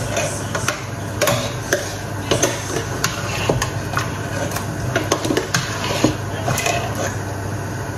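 Metal spoon clinking and scraping against a stainless steel saucepan while chicken and tomatoes are stirred, giving irregular knocks every half second or so.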